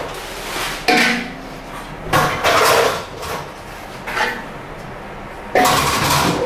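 Metal kitchenware clanging and clattering in four bursts about a second or more apart, the first with a brief ringing tone.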